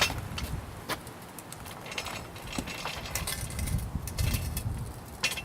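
Wind buffeting the microphone as the motorcycle rolls at low speed, an uneven low rumble with scattered clicks and rattles.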